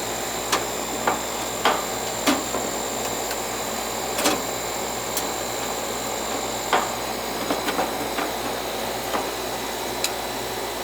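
Steady hiss of running air-conditioning equipment, whose TXV is faulty, with a dozen or so scattered clicks and taps of tools or panels being handled.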